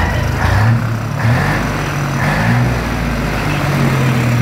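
Diesel engine of an old Mercedes NG 1222 fire truck running at low revs, its deep note shifting up and down a little.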